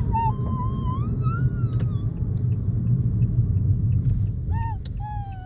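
Steady low road rumble inside a moving car, with a Samoyed puppy whining in thin, high, sliding notes during the first two seconds and again near the end.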